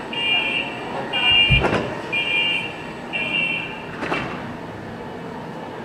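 Door-closing warning beeps on a commuter-train platform with screen doors: four high, steady beeps about one a second, with a heavy thud about one and a half seconds in as the doors shut and a click near four seconds, over the steady running noise of the train.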